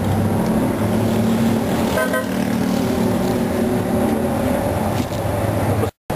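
Street traffic: a vehicle's engine running steadily close by with a low hum, and a brief horn toot about two seconds in. The sound cuts out for a moment near the end.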